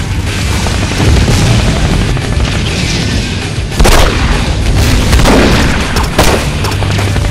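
Action-film soundtrack: a heavy music bed with low booms, cut through by a few gunshots. The loudest shot comes about four seconds in, with more shots over the next two seconds.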